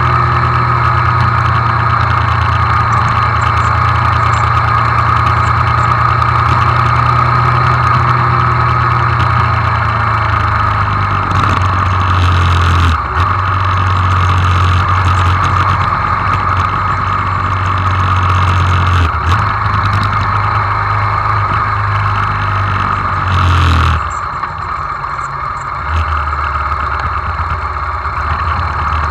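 Hyosung GD250N's single-cylinder engine running under way, heard from the saddle, as the bike slows through the gears. The engine note steps down and breaks off briefly several times, at each downshift.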